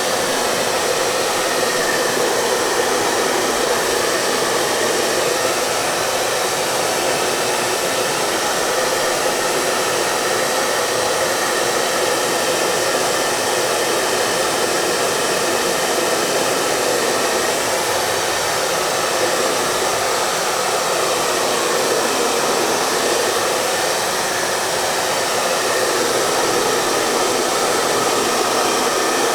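Hair dryer running steadily: an even, continuous rush of air with a faint steady hum in it, unchanging throughout.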